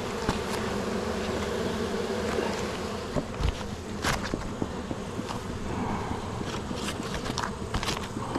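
Many honeybees buzzing in a steady, dense hum over an open hive, from a colony the beekeepers find cranky. A few sharp clicks and knocks cut in around the middle and near the end.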